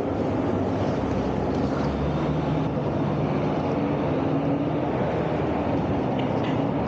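Triumph Tiger 800's three-cylinder engine idling steadily, a low even hum over a constant hiss.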